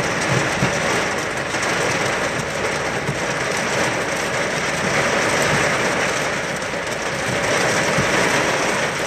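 Torrential rain falling on the car's roof and windshield, heard from inside the car as a dense, steady hiss.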